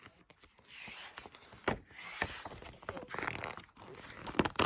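Paper rustling and soft clicks as a picture book's pages are handled and turned, with a burst of sharper clicks near the end.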